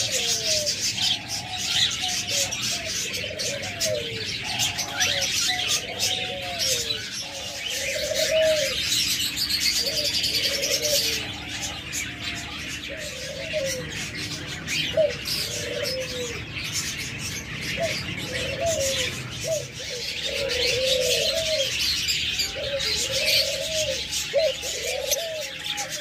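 Doves cooing again and again, a rising-and-falling coo every second or so, over a dense chatter of many small cage birds chirping.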